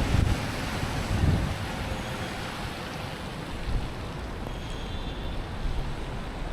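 A car driving on a rain-soaked road: a steady hiss of tyres on wet pavement over low road rumble, with wind buffeting the microphone in the first second or so.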